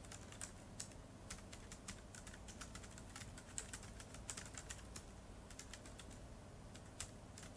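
Faint, irregular clicking of keys as someone types on a keyboard, several keystrokes a second with short pauses.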